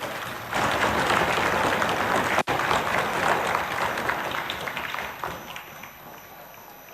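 Applause: many people clapping together. It starts about half a second in, breaks off for an instant midway, and fades away over the last couple of seconds.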